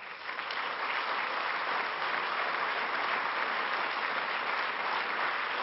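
Audience applauding, building within the first half second and then holding steady.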